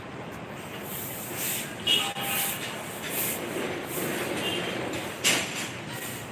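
Steady rumble of outdoor traffic noise, overlaid with scraping from fingers rubbing on the phone and two sharp knocks of handling, about two seconds in and just after five seconds.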